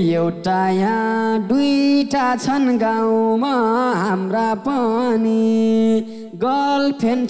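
A male voice singing a Nepali live dohori verse into a microphone, with long held notes and ornamented bends in pitch. He breaks off briefly about six seconds in, then comes back in.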